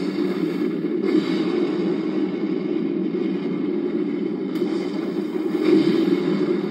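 Film soundtrack playing through a TV's speakers: a steady, dense rumble that swells about a second in and again near six seconds.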